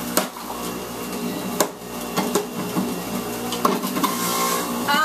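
Electric juicer motor running under load as produce is pushed down the feed chute with the plunger, with several sharp irregular knocks as hard pieces hit the spinning cutter.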